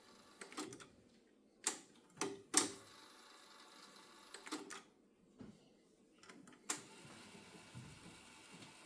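Kenwood KX-660HX cassette deck's controls and tape mechanism clicking: about eight sharp clicks and clunks at uneven intervals, the loudest near the middle, over a faint hiss.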